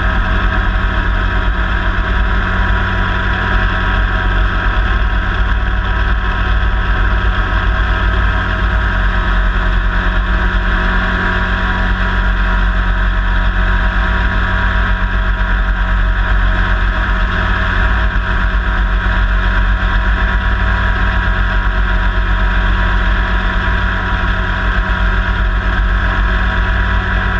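CH7 Kompress ultralight helicopter running steadily in low-level flight: a constant engine and rotor drone, heard up close from a camera on the landing skid.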